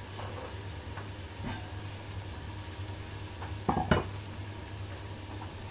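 Food sizzling in a frying pan on a gas stove over a steady low hum, with light utensil scrapes. Two sharp clattering knocks of cookware come close together near the four-second mark.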